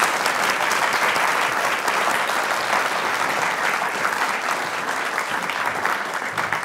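Audience applauding: a steady round of clapping that eases slightly near the end.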